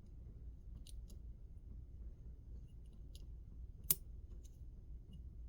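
Faint, scattered metallic clicks of a Lishi SC4 pick working the pins inside an SC1 pin-tumbler lock, with one sharper click about four seconds in.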